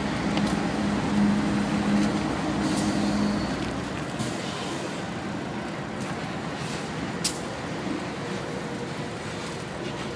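Diesel freight locomotives passing at close range: a low, steady engine hum over broad running noise for the first few seconds, then a more even noise without the hum. A single sharp click comes about seven seconds in.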